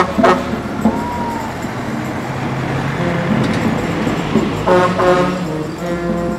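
Small marching brass band playing a slow New Orleans-style funeral march: two bass drum strikes at the start and held brass horn notes near the end, with a rushing street noise between them.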